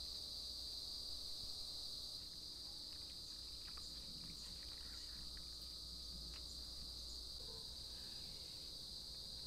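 Insects chirring steadily at a high pitch. A few faint clicks and splashes in the middle come from a cloth being washed in a basin of soapy water.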